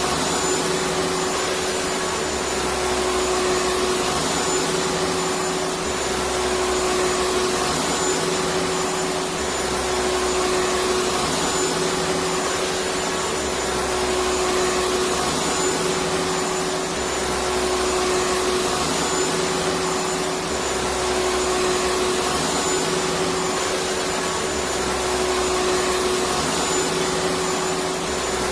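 Electric vacuum cleaner running steadily, an even rushing noise with a constant motor hum and a faint high whine; a faint low throb repeats about every two and a half seconds.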